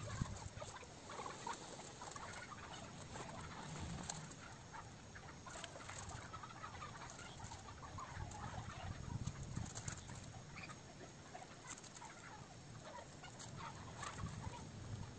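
Quiet forest ambience with scattered short bird calls, mixed with light rustling and clicks from a nylon flysheet and guy line being handled.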